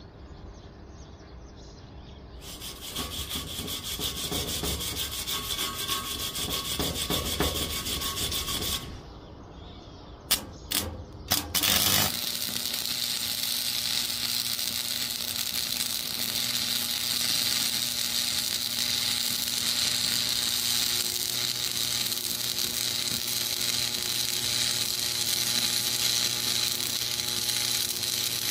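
A rough scraping noise for several seconds, then a few sharp cracks, then the arc of an E6013 stick-welding electrode crackling and sizzling steadily over a low hum.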